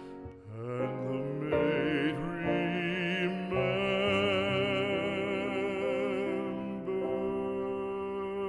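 Background music with long held notes that waver in vibrato.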